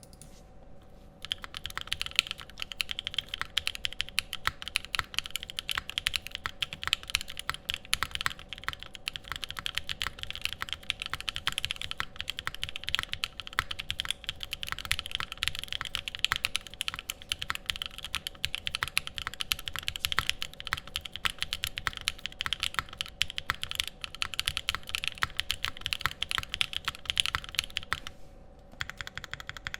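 Typing on a Sangeo60 custom mechanical keyboard with lubed Thic Thock Konpeitou linear switches on JX stems, a polycarbonate plate, no foam and GMK Rudy keycaps: a fast, continuous run of key strokes that starts about a second in and pauses briefly near the end.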